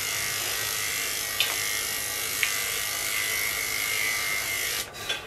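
Electric dog grooming clippers running with a steady buzz and a high whine as they cut through a toy poodle puppy's coat. The motor stops near the end, followed by a few sharp clicks.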